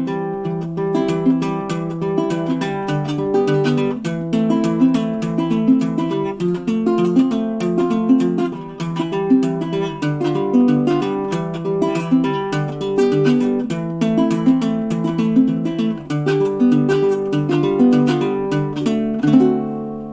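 Laminate Lanikai LU21B baritone ukulele strung with Oasis UKE 8200 GPX strings, fingerpicked in a flowing chord pattern with the notes left to ring into one another. The playing stops near the end and the last chord fades out.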